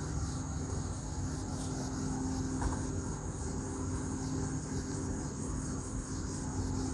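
Steady low droning hum with a thin, constant high-pitched whine over it.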